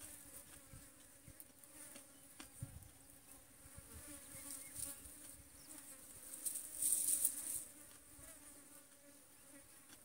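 Flies buzzing faintly and steadily, drawn to the fried dried fish. A higher hiss swells briefly about seven seconds in.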